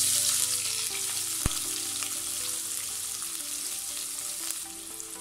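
Sliced onions and chopped green chillies hitting hot oil in a stainless steel karahi: a sudden loud sizzle that slowly dies down. There is a single sharp tick about a second and a half in.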